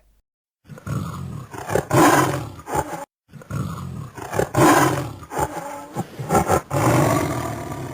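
Tiger roaring and growling in two long stretches, with a short break about three seconds in.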